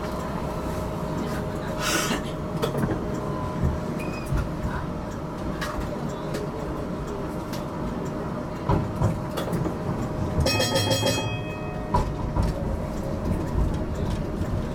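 HTM GTL8 articulated tram running along its track, with a steady rumble and hum and scattered wheel and rail knocks. A brief, rapid ringing comes about ten seconds in.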